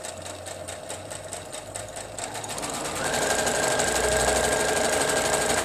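Domestic electric sewing machine stitching a seam through two patchwork fabric squares. It runs at a moderate pace at first, speeds up and gets louder about halfway through, then stops suddenly near the end.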